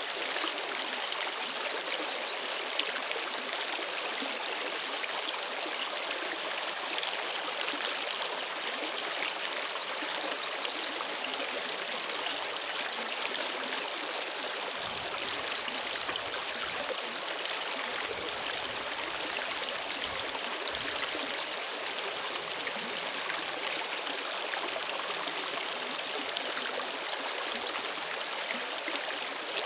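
Steady rushing of flowing water, like a stream. A short high-pitched ticking series repeats about every five seconds.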